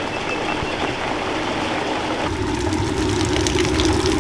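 Water running steadily in a brick canal lock chamber as it empties. About two seconds in, the sound changes to water spouting through leaks in the brick lock wall and splashing down.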